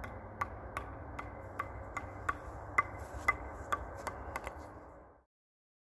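A small hollow ball being struck in quick succession, as in table tennis: sharp, slightly ringing clicks about two to three a second, a little irregular, over a steady low hum. The sound cuts off abruptly near the end.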